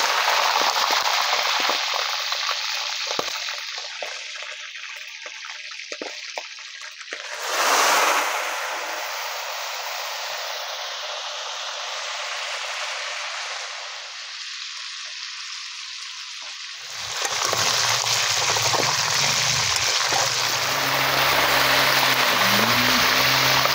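Chicken pieces deep-frying in hot oil in a steel wok: a steady sizzle, briefly louder about eight seconds in. A low steady hum joins under the sizzle for the last several seconds.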